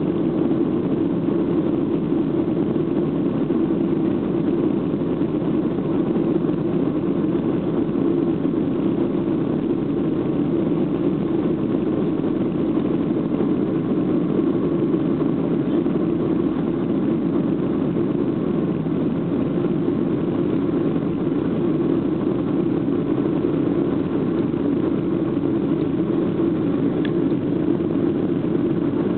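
Jet engines of a Boeing 737 at takeoff thrust, heard inside the passenger cabin as a steady, loud rushing drone through the takeoff roll and into the climb.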